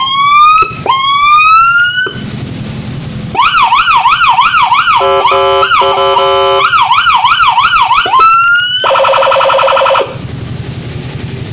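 Custom 100-watt electronic police-escort siren cycling through its tones: two rising whoops, then a fast up-and-down warble, a stepped pattern, the warble again, a short whoop and a steady buzzy horn tone. It cuts off about ten seconds in.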